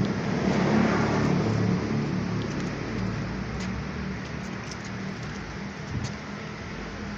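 A motor vehicle passing on the road, loudest about a second in and then easing off into a steady low outdoor rumble.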